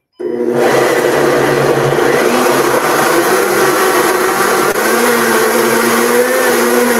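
Countertop blender switched on abruptly and running steadily at full speed, re-mixing oat waffle batter thinned with plant milk.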